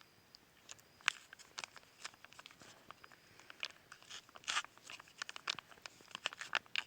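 Plastic packaging crinkling and crunching as it is handled, in many short, irregular crackles and clicks.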